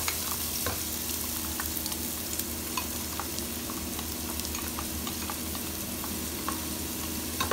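Chopped onion sizzling in hot oil in a non-stick pot as it is stirred with a spatula: a steady frying hiss with many small scattered crackles and ticks.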